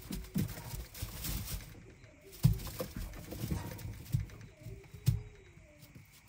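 A young fox bounding and pouncing as it plays with a chew treat: irregular thumps and taps of paws and treat hitting the floor, with a handful of sharper knocks.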